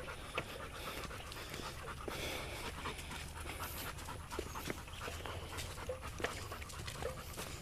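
Dog panting steadily, with scattered small clicks and rustles around it.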